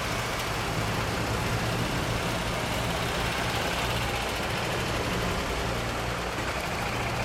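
A motor vehicle engine idling steadily, a low even hum over a constant wash of background noise.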